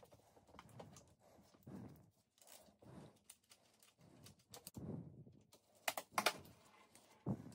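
Faint handling noises of gloved hands fitting the handlebar holding brackets on a dirt bike among its control cables: irregular soft knocks and rustles, with a few sharp clicks about six seconds in.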